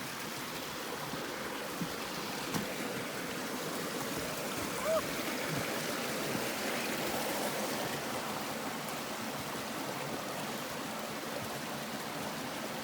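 Creek water running steadily, a rushing flow with no letting up, with a brief short chirp about five seconds in.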